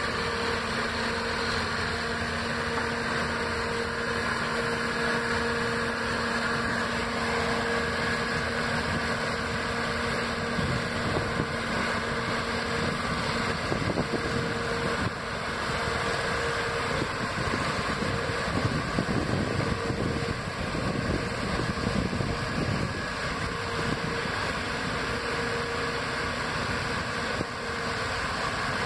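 Massey Ferguson 205 sugar cane harvester running steadily as it cuts cane: a constant engine drone with a held whine. From about halfway, a tractor pulling the cane haulout bin alongside adds a heavier low rumble.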